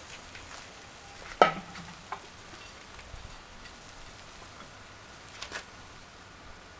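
Chicken kebabs sizzling on a wire grill over hot charcoal briquettes: a steady soft hiss, with one sharp click about a second and a half in and a few fainter clicks later.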